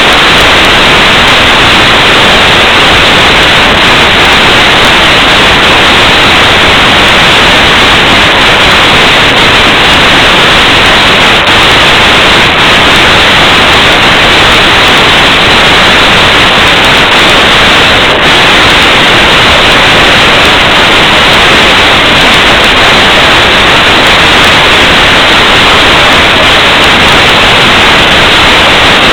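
Loud, steady hiss like static, with no beat, tones or voices coming through. It is pinned near full loudness the whole time, the sign of a saturated, overloaded recording.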